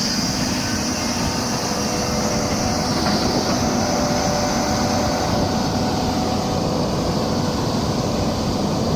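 Doosan 300LC-V excavator's diesel engine running steadily, with a few faint steady tones over the rumble.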